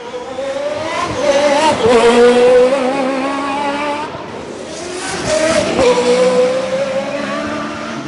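A car engine revving in two runs, the pitch climbing in the first and settling steady, then dropping and holding in the second, which starts about five seconds in.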